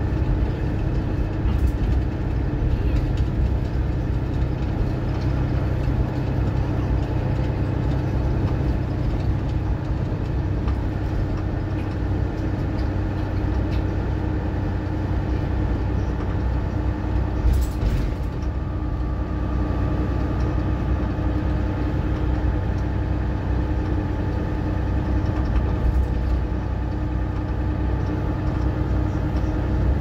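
Mercedes-Benz Citaro bus's diesel engine and drivetrain heard from on board, running steadily at speed as a constant low drone with a steady whine over it. A single brief knock a little past halfway.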